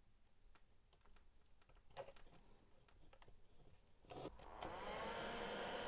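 A few faint handling clicks, then about four and a half seconds in a 24 V blower fan in a DIY 3D-printer chamber heater switches on, spinning up with a whine that rises and settles into a steady whoosh of air.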